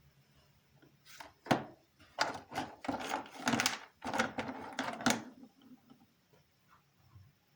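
A quick run of about ten knocks and clatters of objects being handled, between about one and five seconds in.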